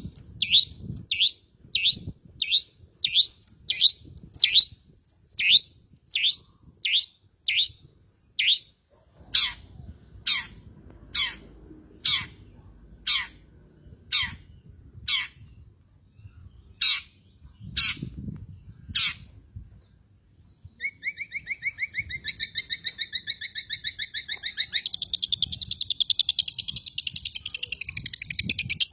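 Long-tailed shrike (cendet) calling: a run of harsh calls sliding downward in pitch, about two a second, then slower single calls about once a second. From about two-thirds of the way in, a fast, dense buzzing trill takes over and runs on.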